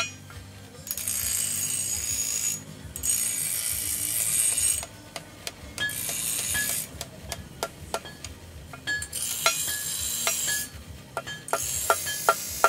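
Small hammer tapping the metal pins that fix wooden handle scales to a machete's tang on the anvil: sharp, ringing metal taps, sparse at first and coming about three a second near the end.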